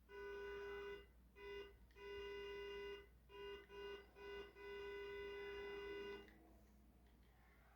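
Car horn honking in a series of blasts: a long one, a short one, another long one, three short ones, then a longer blast of about a second and a half that stops about six seconds in.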